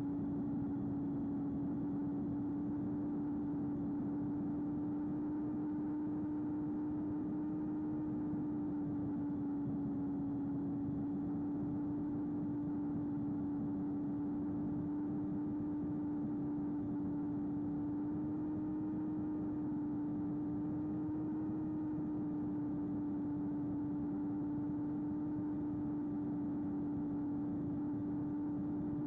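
Electric motor and propeller of a small FPV flying wing running at steady part throttle: a constant hum that wavers only slightly in pitch, over a steady hiss.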